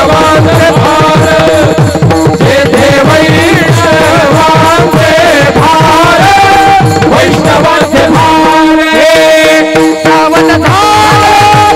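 Varkari devotional chorus singing in unison, kept in time by pakhawaj drum strokes and the jingle of small brass hand cymbals (tal). Near the middle the voices hold one long note before the melody moves on.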